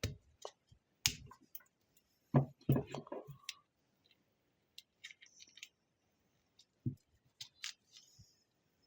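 Irregular clicks, taps and light scraping of a plastic battery case being opened by hand to get a CR2032 coin-cell battery out.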